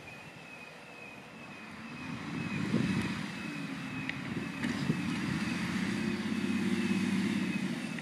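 Belarus MTZ 1221.2 tractor's six-cylinder diesel engine running, swelling louder about two seconds in and then holding a steady rumble while the raised reversible plough is turned over. Two short knocks come a little past the middle, and a faint high chirp repeats about every half second.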